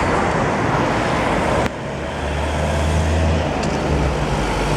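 Busy city street traffic, a steady roar of passing vehicles. About two seconds in the sound changes abruptly, and a low, steady engine hum from a nearby vehicle stands out under the traffic.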